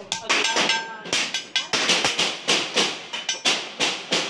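Hand hammer striking a cold chisel held on a folded sheet-metal channel, chiselling into the metal. The sharp metallic blows come irregularly at first, with a short metallic ring after some of them, then settle into a steady run of about three a second.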